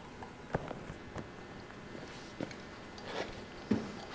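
A few sparse, quiet clicks and taps, about one a second, as metal lug nuts are handled and threaded by hand onto the wheel studs.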